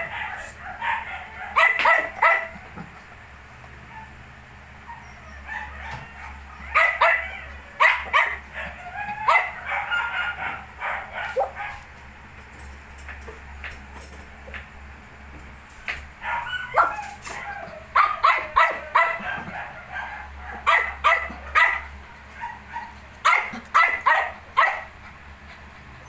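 Puppies about 19 days old yipping and whimpering in short bursts of several quick calls, with pauses of a few seconds between bursts.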